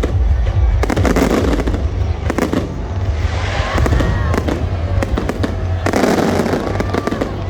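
Aerial fireworks going off in rapid crackling bursts over a low rumble of booms. Dense clusters of crackle come about a second in and again near six seconds.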